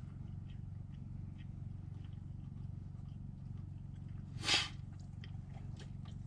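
A person chewing a bite of boiled burbot, with small wet mouth clicks, over a steady low hum. A short breathy rush, a sharp exhale or sniff, comes about four and a half seconds in.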